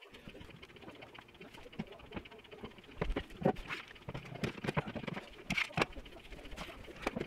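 Irregular clicks and light knocks of one-handed bar clamps being set against painted cabinet frames and squeezed tight with their trigger handles. The clicks are sparse at first and come thicker from about three seconds in.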